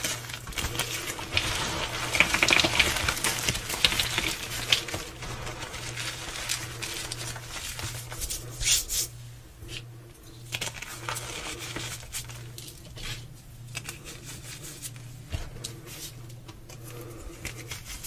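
Gym chalk crumbled and crushed in bare hands together with rose petals: dense crunchy, powdery crackling, busiest in the first few seconds and then thinning to scattered crumbles.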